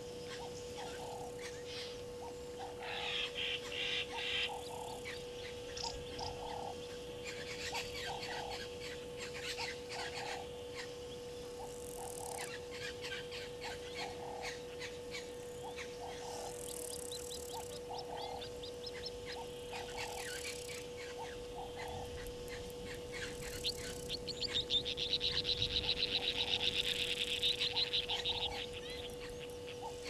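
Wild animal calls: a short low call repeated about once a second, and a fast high trill heard briefly about three seconds in and louder for about four seconds near the end, over a steady hum.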